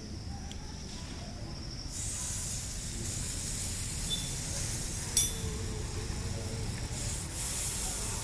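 Wet electric geyser heating element powered up in open air, the water on it hissing as it heats off; the hiss gets louder about two seconds in, with a single click about five seconds in. The hiss is the sign that the element is heating, i.e. working.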